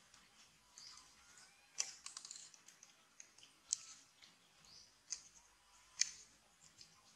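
Faint wet clicks and smacks of macaques eating ripe mango, the baby biting and sucking at the fruit. A few sharper clicks come every second or two.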